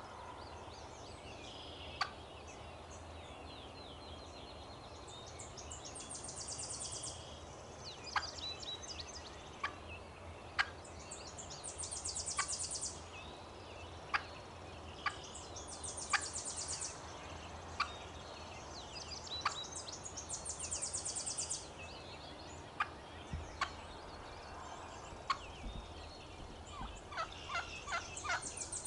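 Young wild hen turkey clucking: single sharp clucks every one to several seconds, with a quicker run of calls near the end. A high, fast trill from another creature comes and goes several times, with small bird chirps.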